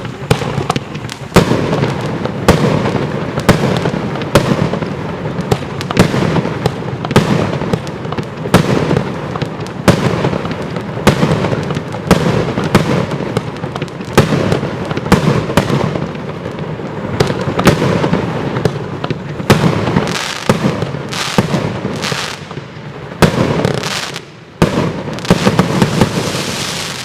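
Bonfireworks Bloody Chameleon 25-shot firework cake firing, one shot after another at about one a second, each launch a sharp bang over a continuous noise of bursting effects.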